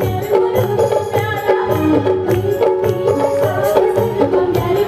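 A woman singing live into a microphone over Indian folk music with a steady drum beat.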